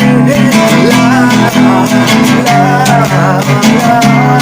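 Music: strummed guitars over a steady beat, with a wavering melody line above.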